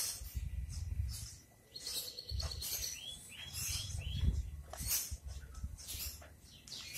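Small birds chirping, with a quick run of four short falling chirps about three seconds in, over a low uneven rumble.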